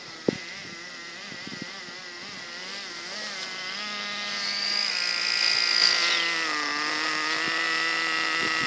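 Small nitro engine of a Redcat Shockwave RC buggy running, its pitch wavering with the throttle and then climbing and getting louder as it speeds up about halfway through, with a high whine that drops off near six seconds. A sharp click comes just after the start.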